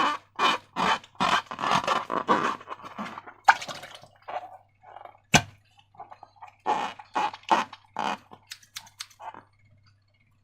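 Slime being squeezed and worked by hand: a run of irregular wet squelches and squishes, thinning out in the second half, with one sharp click about five seconds in.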